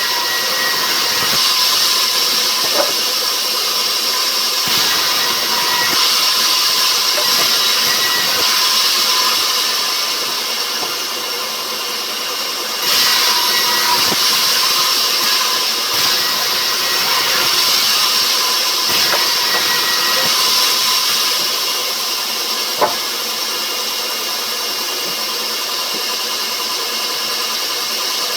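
Sawmill machinery running steadily, a constant mechanical drone with a strong high hiss. It grows suddenly louder about 13 seconds in, and there is a single sharp knock near the end.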